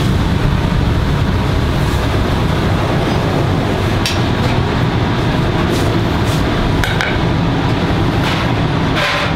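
Steady low rumble of a professional kitchen's ventilation and equipment, with a few light clicks and clinks of utensils in the second half.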